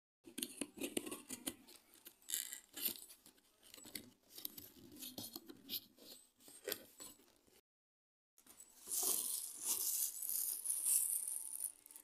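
Cardboard packaging of an induction cooktop being handled and opened by hand: irregular scraping and rustling of the box. Near the end it gives way to louder crinkling as the plastic wrapping around the cooktop is handled.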